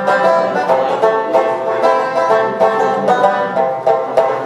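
Banjo picked in quick runs of plucked notes.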